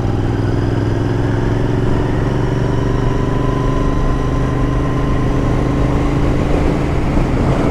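Royal Enfield Interceptor 650's parallel-twin engine running at a steady cruising speed, its note holding an even pitch.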